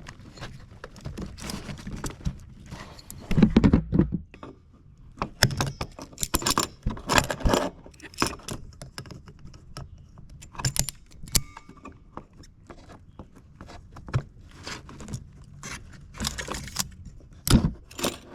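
Metal hand tools and spring hose clamps clinking and clattering while vise grips work a heater hose clamp onto its connector. The clicks come irregularly, with a few louder knocks, the loudest about three and a half seconds in and again near the end.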